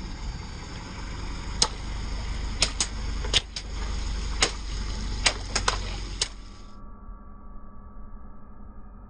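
A car tyre rolls slowly onto a row of long twisting balloons on wet concrete: a low rumble with about ten sharp cracks as the balloons are squeezed and crushed under it. About seven seconds in the sound turns dull and quieter.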